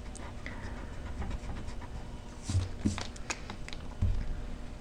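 Pencil drawing on paper: faint scratching strokes, with a few soft bumps of hand and paper against the table about halfway through and near the end.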